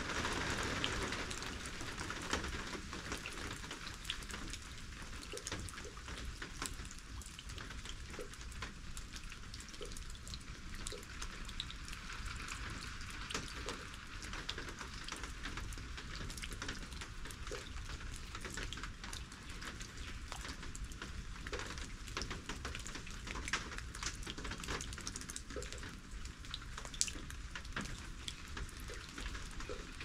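Steady rain falling, with many individual drops ticking sharply on nearby surfaces.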